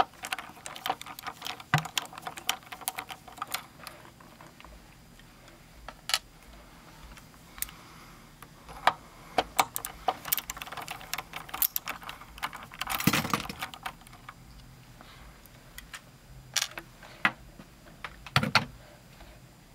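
Irregular small metal clicks, taps and scrapes of a screwdriver working the tone-arm mounting screws inside a Technics SL-1200 turntable base, with light clinks of loose metal parts. A longer scraping rustle comes about 13 seconds in, and another near the end.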